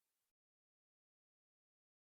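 Silence: the sound track is digitally silent.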